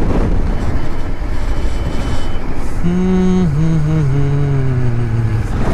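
Motorcycle riding noise, heard at the rider's helmet: wind rush and engine on an open road. About halfway through, a low held tone comes in and falls slowly in pitch in small steps.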